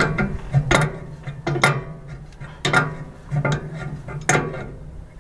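A metal wrench working the brass air-hose fittings on a trailer's relay valve as they are tightened: about six sharp metallic clicks, roughly one a second, over a steady low hum.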